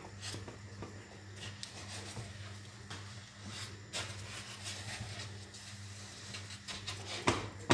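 Wooden spoon stirring thick mashed potato in a stainless steel pot, with soft scrapes, squelches and scattered knocks against the pot and a louder knock near the end, over a steady low hum.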